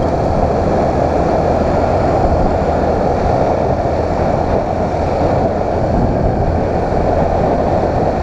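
Motorcycle riding at a steady speed, its engine running under a steady rush of wind over the microphone.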